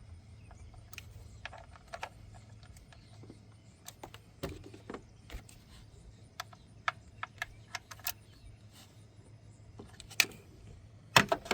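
Scattered light metallic clicks and taps of hand work on an engine, with a louder cluster of clicks near the end, over a faint steady low hum.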